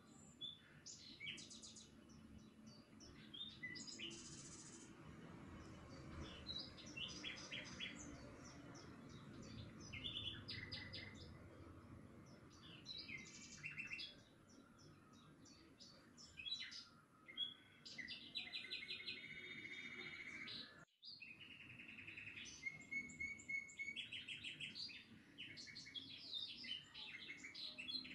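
Small birds chirping and twittering in many short, high-pitched calls and quick trills, breaking off briefly about two-thirds of the way through.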